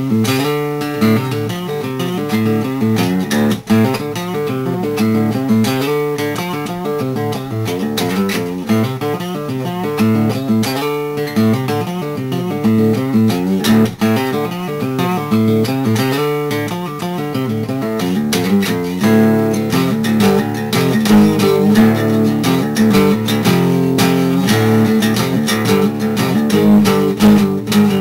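Guitar music with a quick run of plucked notes over a bass line.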